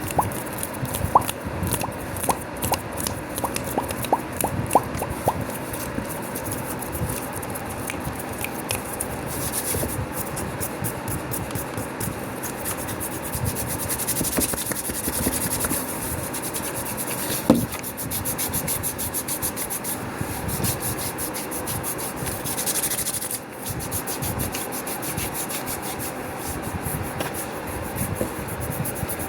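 Fast, rough hand rubbing and skin scratching close to the microphone, with quick mouth clicks and pops over the first few seconds and one sharp click partway through.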